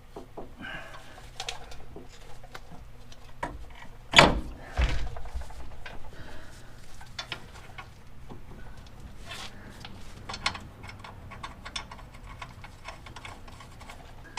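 Metal suspension parts and hand tools being handled during strut fitting: scattered light clicks and clinks, with two heavy knocks about four and five seconds in.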